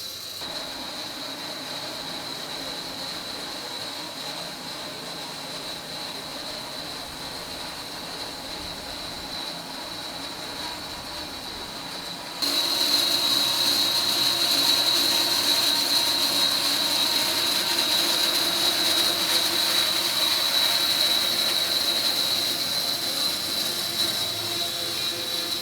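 Sawmill running and cutting through a large black walnut log: a steady mechanical drone with a high blade whine, which jumps suddenly louder about halfway through.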